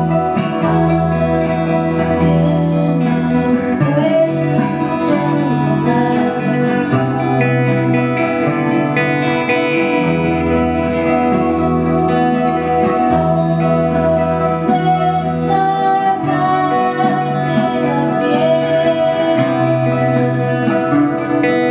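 Live band music: guitars over sustained low bass notes that change every couple of seconds, with a woman singing.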